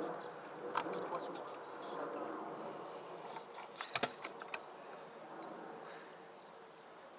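Faint outdoor ambience with a steady insect hum and buzz. A single sharp click comes just under a second in, and a quick cluster of sharp clicks about four seconds in.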